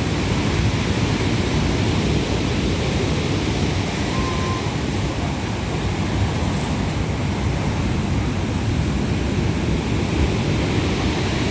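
Sea surf and wind, a steady rushing noise, with wind buffeting the microphone.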